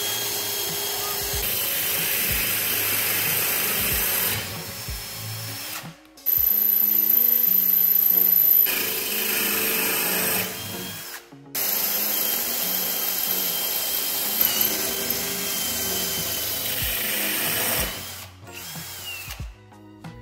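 Power drill with a masonry bit boring holes through ceramic floor tile, running steadily in three long runs with short pauses between, one run per screw hole.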